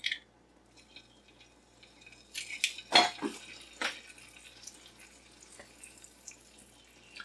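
An egg cracked and dropped into a carbon steel fry pan of hot butter: a few sharp cracks and taps of the shell between about two and a half and four seconds in, the loudest about three seconds in, followed by faint sizzling as the egg starts to fry.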